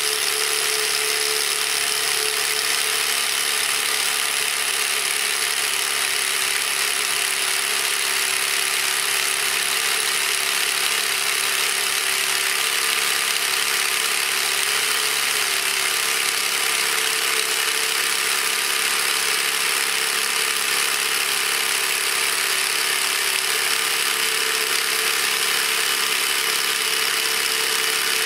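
DeWalt DCH263B 20 V brushless SDS-plus rotary hammer drilling steadily into concrete in hammer-drill mode, with a 1-inch masonry bit that is larger than the tool's rated capacity, so it works under heavy load.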